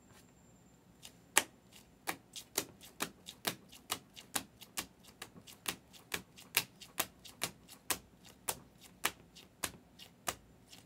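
Trading cards in rigid plastic top-loader holders clicking and clacking against each other as a stack is flipped through by hand: an irregular series of sharp clicks, about two to three a second, starting about a second in.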